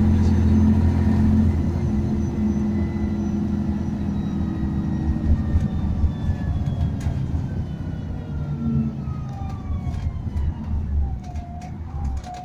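Scania N113DRB double-decker bus's six-cylinder diesel running under way, heard from inside the passenger saloon. A drivetrain whine slides down in pitch as the bus slows, and the sound gets quieter toward the end.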